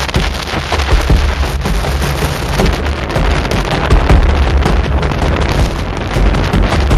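Typhoon winds buffeting the camera microphone: a loud, continuous rumbling rush that surges unevenly with the gusts.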